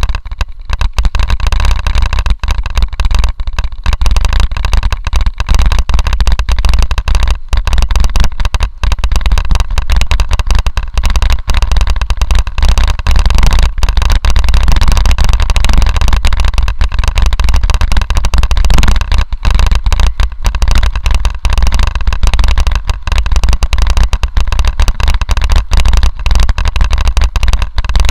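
Mountain bike rolling fast down a gravel road: tyres crunching over loose stones and dense rattling clicks from the bike and camera mount, under heavy wind rumble on the microphone.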